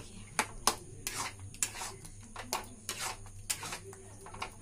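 Spatula stirring and scraping thick besan halwa against a steel pan, an irregular run of scrapes and taps about two or three a second.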